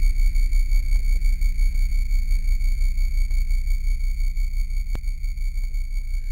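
Heavily distorted, slowed-down electronic audio: a low, fast-pulsing rumble under steady high-pitched whine tones, with a faint click about five seconds in.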